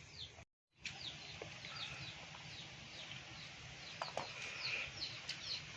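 Birds chirping: many short, high chirps falling in pitch, several each second, after a brief silent gap near the start.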